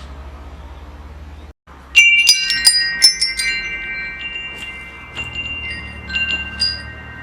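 Metal wind chimes: a cluster of strikes about two seconds in sets the tubes ringing with long, slowly fading tones, and a few lighter strikes follow later on. Before the chimes there is a low steady rumble that drops out for a moment just before the first strike.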